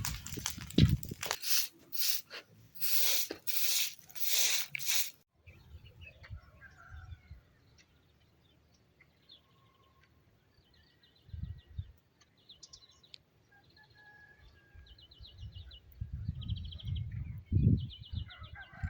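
A songbird singing short, high, rapid trills, repeated about once a second over the second half. The first five seconds hold a few loud surges of rustling noise, and there are low rumbles now and then.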